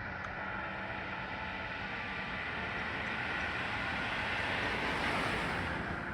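A passing vehicle: road and tyre noise swells to a peak about five seconds in and then fades. Faint steady tones, likely the church bells ringing on, lie underneath.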